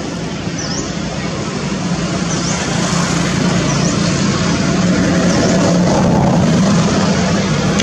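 A motor vehicle engine runs with a steady low drone over traffic noise, growing somewhat louder partway through. A short high chirp repeats about every second and a half above it.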